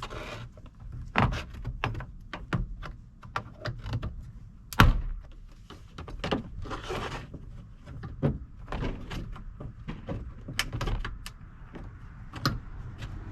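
Trim tool prying the plastic push-clip fasteners off the bottom of a 2003 Toyota Tacoma's door panel: a run of irregular clicks and knocks against the panel, the sharpest about five seconds in.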